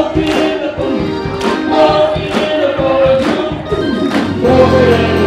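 Live rock band playing: sung vocals over drums hitting about twice a second, with a sustained low bass note coming in near the end.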